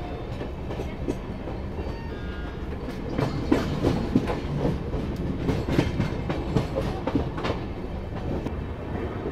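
Gatimaan Express coach wheels rumbling and clacking over rail joints and points as the train rolls slowly through a station yard, with a run of sharp clacks in the middle few seconds.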